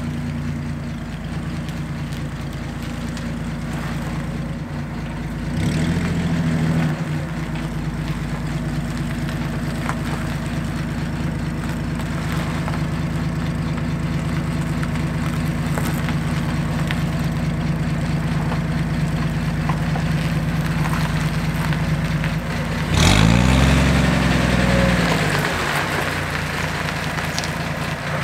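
1937 Chevrolet's inline-six engine idling steadily, blipped up in revs and back down twice, about six seconds in and again, louder, near the end.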